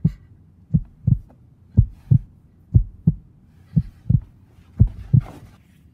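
Heartbeat sound effect: pairs of low thumps, lub-dub, about once a second, stopping shortly before the end.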